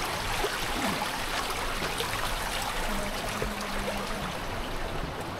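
Stream of water rushing steadily, a continuous even noise of flowing water.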